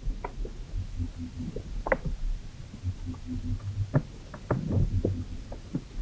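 Underwater pond sounds picked up by hydrophone: low throbbing groans of unidentified origin, with short runs of low pulsed notes over a rumble and scattered sharp clicks, the loudest about two and four seconds in.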